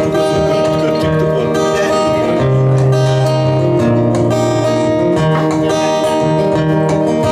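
Live acoustic band music: an acoustic guitar strummed in a steady rhythm, with a melody instrument holding long notes over it and the bass notes changing every second or two.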